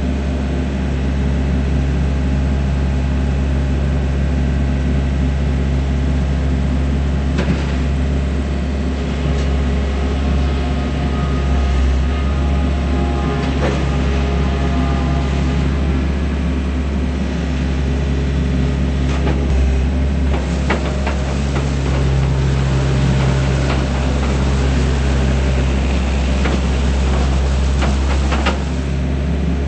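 Takeuchi TL130 tracked skid steer loader's diesel engine running steadily, with scattered metallic clanks in the second half.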